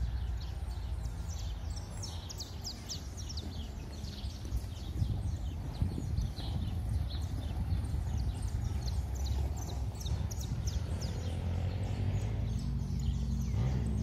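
Birds chirping and calling in the trees: many short, high, downward-sweeping calls repeated throughout, over a steady low rumble.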